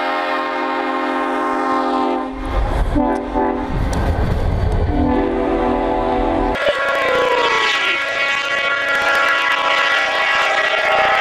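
Diesel locomotive air horn sounding a multi-note chord in several blasts, long, short and long, as the train passes close by with a low rumble. Partway through the sound changes abruptly to another locomotive's horn over the rushing noise of a train plowing through snow.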